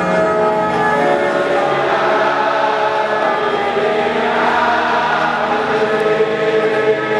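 Large stadium crowd of football supporters singing a slow song together, with long held notes.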